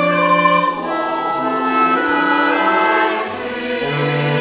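Choir singing with strings in a slow classical piece, held chords shifting from note to note about every second; a low sustained note comes in near the end.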